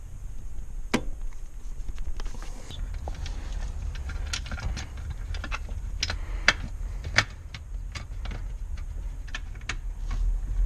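Hands working on car interior parts: a string of irregular clicks and knocks over a low rumble, with sharper knocks about a second in and twice near the seven-second mark.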